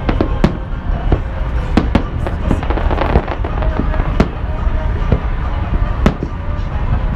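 Fireworks display going off: a dozen or so sharp bangs at irregular intervals, some close together, over a constant low rumble.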